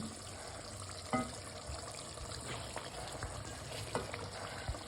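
Stew sizzling steadily in an open cooking pot on the fire, with a few light knocks of a spoon against the pot.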